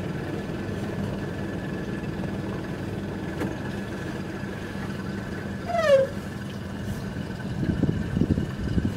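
Small fishing boat's engine idling steadily. About six seconds in comes one short, loud squeal that falls in pitch, and near the end there are rough, irregular low sounds.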